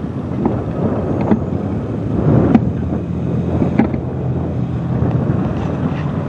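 Road traffic crossing a railroad grade crossing: cars driving over the tracks, with a few sharp knocks and a low engine hum from about halfway. Wind buffets the microphone.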